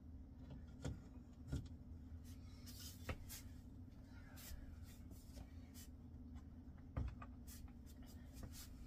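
Faint rustling and a few light knocks, about four, as yarn cakes are handled and set on the pegs of a pegboard, over a steady low room hum.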